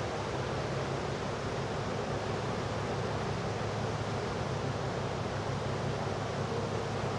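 Steady rush of storm-driven surf with wind, an unbroken noise without separate wave crashes, stirred up by a hurricane.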